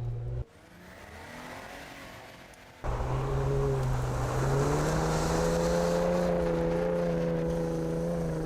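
Ford F-150 Raptor's twin-turbo 3.5-litre EcoBoost V6 running, its sound cut off abruptly about half a second in. A fainter stretch follows. The engine comes back suddenly about three seconds in, its pitch slowly rising as the revs build.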